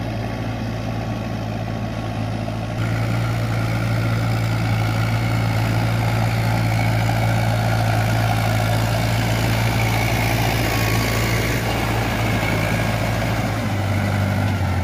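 Shibaura SD3000 tractor, fitted with a combine harvester's engine, running steadily under load as it pulls a harrow on cage wheels through a flooded paddy. It gets louder about three seconds in.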